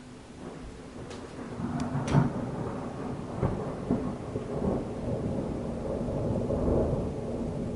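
Thunder: sharp crackles building to a loud clap about two seconds in, then a long rolling rumble that carries on.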